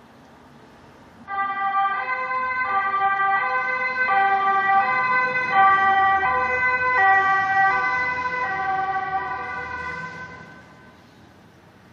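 Ambulance two-tone siren alternating between a high and a low note about every three-quarters of a second. It starts suddenly about a second in, grows louder toward the middle and fades away near the end, over faint background noise.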